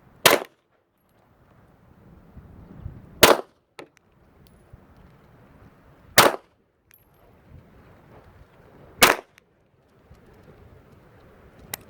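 Four pistol shots about three seconds apart, then near the end a faint click with no bang as the hammer falls on a round that fails to fire: the 'misfire' that is the warning sign of a possible squib load with a bullet stuck in the barrel.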